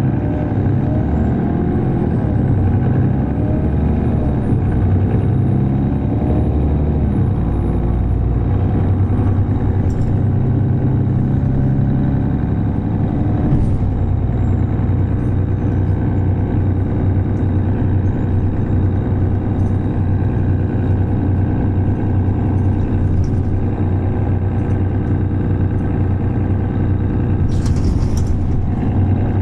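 Mercedes-Benz O530Ü Citaro city bus heard from on board, its OM906hLA six-cylinder diesel running through the ZF automatic gearbox. The engine note shifts and climbs in the first half, then settles to a steady run. Near the end comes a short hiss of air from the bus's compressed-air system.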